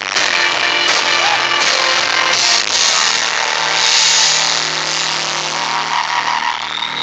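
Loud live show music captured by a phone's microphone, harsh and hissy, with sustained notes holding steady through the second half.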